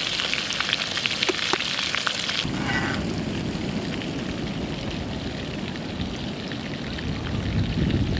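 Masala-coated fish pieces sizzling and crackling in hot oil in an iron kadai. About two and a half seconds in the crackle stops abruptly and a low, steady rumble of wind and sea surf takes over.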